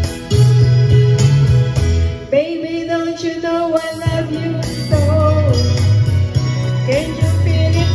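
A woman singing into a handheld microphone over a backing music track with a steady bass line.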